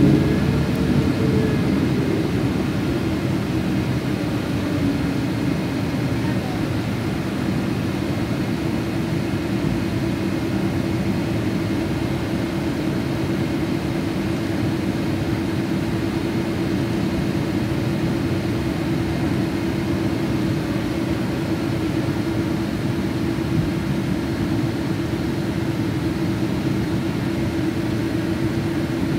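Steady cabin noise inside a Boeing 777-200ER on the ground, with a constant droning hum. Over the first few seconds a tone slides down in pitch and settles into the hum.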